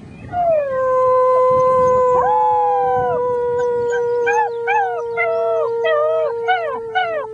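Six-week-old German Shepherd puppies howling together: one long, steady held note runs underneath, another howl rises and falls briefly about two seconds in, and from about four seconds on a run of short, falling howls comes at roughly two a second.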